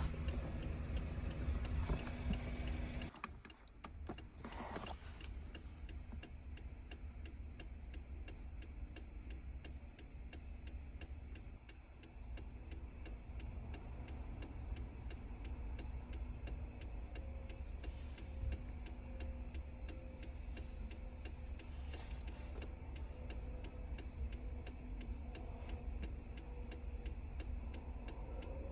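A steady mechanical hum stops about three seconds in, leaving a run of rapid, evenly spaced ticking.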